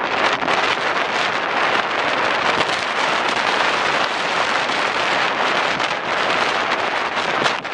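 Strong wind of about 35 knots blowing hard across the microphone: a loud, steady rush with frequent small crackles and buffets.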